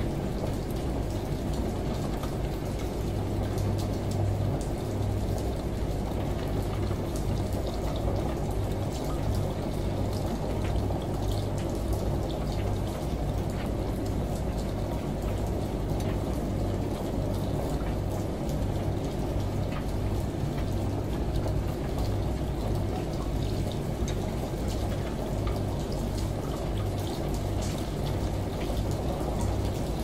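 Front-loading washing machine on its wash cycle: water sloshing as the drum tumbles the laundry, over a low motor hum that pulses evenly.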